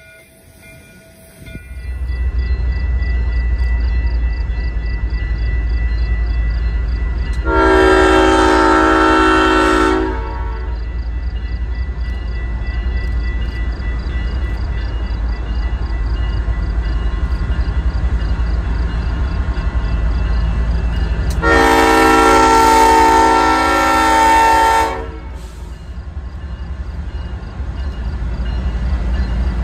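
Diesel locomotives of a light-engine move rumbling past, led by CSX 1776, a GE ES44AH, sounding its multi-chime air horn in two long blasts, the second longer, about a quarter and three-quarters of the way through, with a bell ringing steadily under the engine noise.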